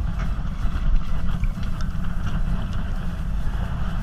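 Motorboat engine running steadily, a low rumble.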